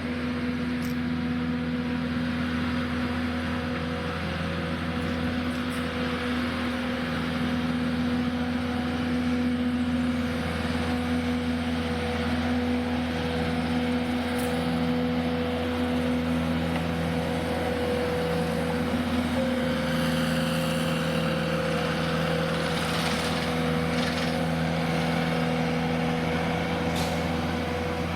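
Engine of tree-trimming equipment running steadily at constant speed, with a few faint clicks in the second half.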